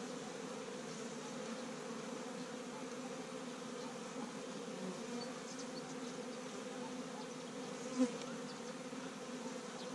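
Carniolan honeybees humming steadily around an opened hive, one even drone. A brief knock about eight seconds in.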